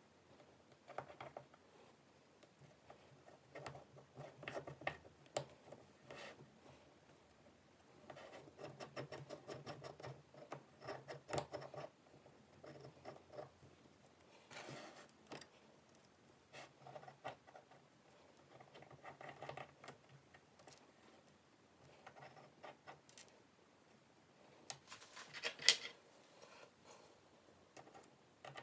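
Small metallic clicks, taps and scraping as steel Oyster bracelet links and the steel blocks of a bracelet-stretch repair jig are handled and fitted together. A sharper metal click sounds near the end.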